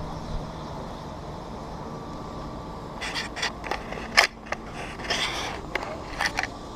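An irregular run of sharp clicks and knocks about halfway through, with a short scrape among them, over a steady background hum.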